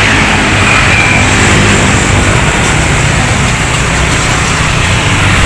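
A road vehicle's engine running loudly and steadily close by: a dense, even rumble.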